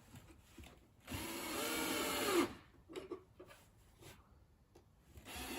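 Power drill driving screws into the drawer: one run of motor whine lasting about a second and a half, a few light knocks, then a second run starting near the end.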